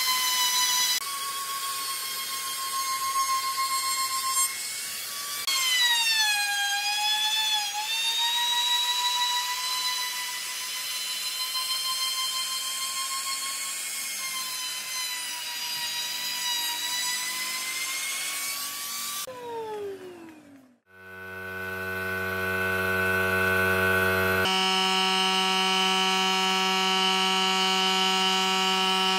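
Handheld trim router running at speed as it routs the edge of a wooden chair's armrest; its high whine dips in pitch as the bit takes load and recovers, then the motor winds down about nineteen seconds in. A steady electric buzz follows.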